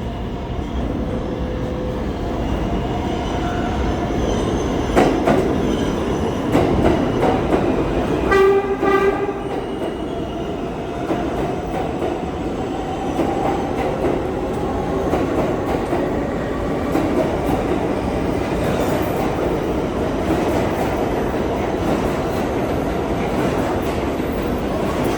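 R142A subway train running through the station without stopping, its wheels rumbling on the rails throughout. One short horn blast sounds about eight seconds in.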